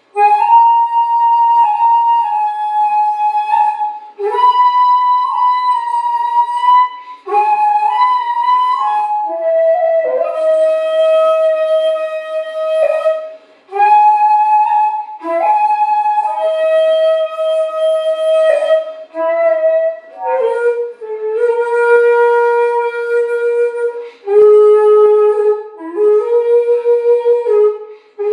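Solo shakuhachi, the end-blown bamboo flute, playing a Kinpū-ryū honkyoku with a breathy tone. It holds long notes of one to three seconds, slides and bends between pitches, and stops for short breath pauses. About two thirds of the way through, the melody drops into a lower register.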